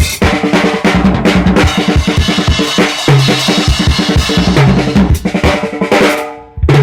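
Drum kit played hard, a dense run of bass drum and snare hits that dies away briefly near the end before the playing starts again.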